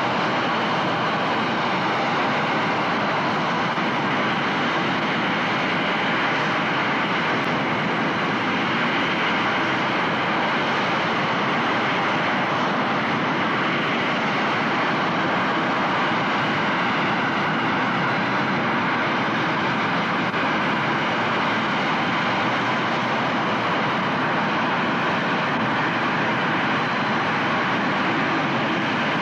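Twin MiG-21 turbojet engines of the Big Wind firefighting machine running at a steady output, with water sprayed into the exhaust jet. A constant rushing noise that does not change in pitch or loudness.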